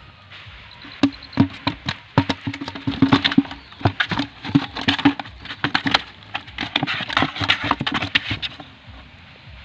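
Freshly caught fish thrashing inside a plastic bucket: a rapid, irregular run of slaps and hollow knocks against the bucket, starting about a second in and stopping shortly before the end.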